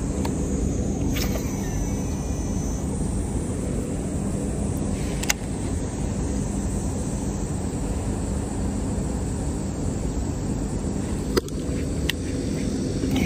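Steady low outdoor rumble with a few sharp clicks, one about five seconds in and two more close together near the end.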